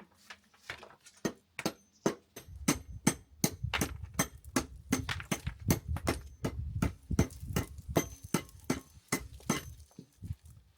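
Repeated sharp knocks and chinks of a hand tool striking stone, several a second and irregular, with a low rumble under them through the middle.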